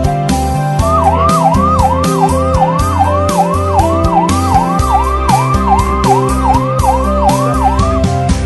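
Ambulance siren yelping, a fast up-and-down wail about twice a second, starting about a second in and stopping just before the end, over background music.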